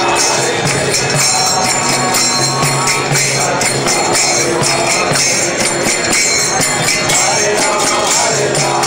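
Loud music with a fast, steady beat of jingling percussion running through it.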